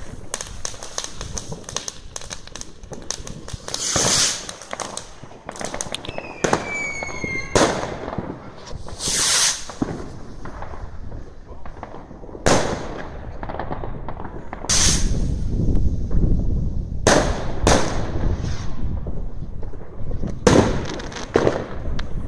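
Fireworks and firecrackers going off: a string of sharp bangs every one to three seconds, with steady crackling and low rumbling from other fireworks between them. About six seconds in, a firework whistles for about a second and a half and ends in a bang.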